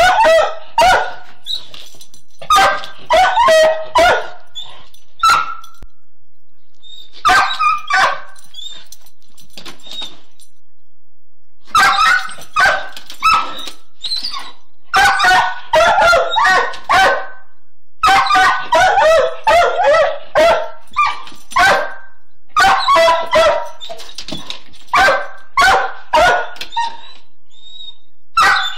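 Foxhound barking at a cat, in bursts of several quick barks with pauses of a second or two between bursts.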